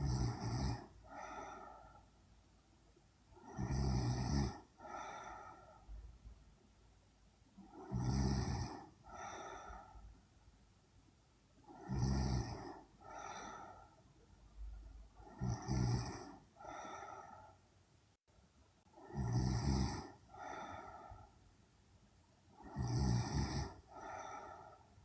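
A young woman snoring in her sleep: a loud rattling snore about every four seconds, seven in all, each followed about a second later by a softer breath out.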